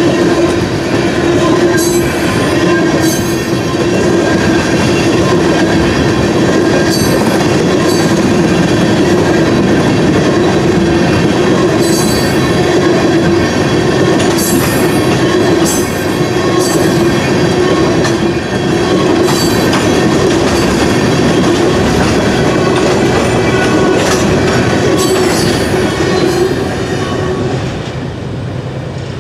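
Freight train of tank cars rolling through a grade crossing: a steady rumble of wheels on rail, with repeated short high-pitched wheel squeals. It drops off near the end as the last car clears.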